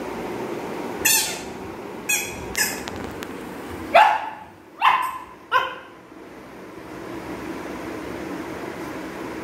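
Labrador puppy giving play barks at a toy: six short yips and barks, each dropping in pitch, the first three thin and high, the last three fuller and lower about four to six seconds in.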